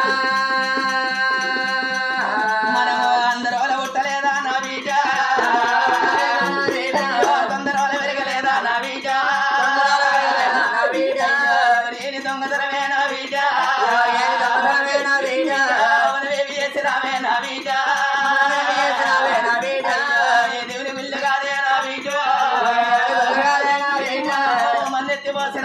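Oggu katha folk singing: one voice sings a melodic sung narrative, opening on a long held note, over steady hand-drum strokes.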